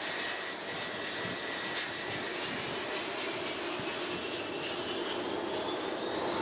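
Étendard jet's turbojet running at high power on a carrier's steam catapult before launch: a steady jet rush with a thin whine that rises in pitch over the last few seconds.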